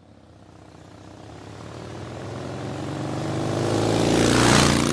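Royal Enfield motorcycle engine running, growing steadily louder over about four seconds to a peak near the end, then dropping back a little.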